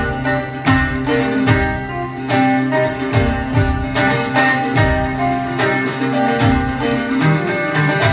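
Acoustic guitar strummed in a steady rhythm with no singing. A low thump lands about once a second under the strums.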